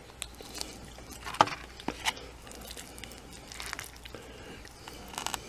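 Quiet eating and food-handling noises: scattered soft clicks and squishes, with a few brief louder ticks.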